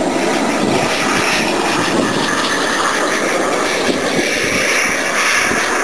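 Small gas-turbine engine of a radio-controlled F-4 Phantom model jet at full power through its takeoff roll and climb-out: a steady, loud jet noise whose higher hiss grows stronger past the middle.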